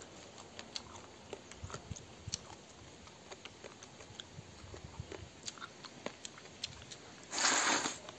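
A person eating rice noodles: chewing with small wet mouth clicks, then one loud slurp of noodles near the end.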